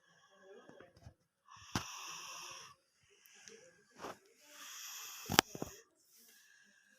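A sleeping person snoring: five rasping breaths, each about a second long, with a sharp click about five seconds in that is the loudest moment.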